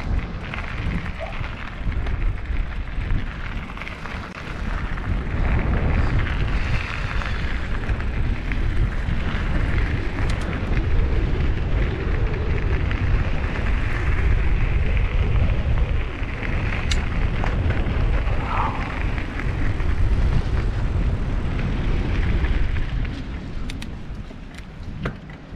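Wind buffeting the microphone of an action camera on a moving mountain bike, a deep rumble, mixed with the knobby tyres rolling over a dirt and gravel path. A few sharp clicks and rattles from the bike stand out.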